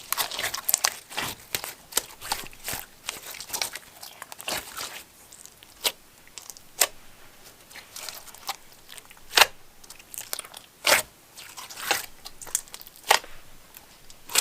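Slime being squeezed and pressed by hand, giving irregular crackling clicks and sharper pops, a few of them louder snaps in the second half.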